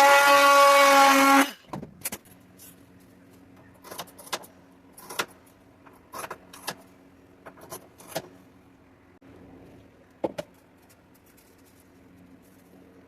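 A power tool running with a steady whine that cuts off about a second and a half in. Scattered light clicks and scrapes of handling material and tools follow.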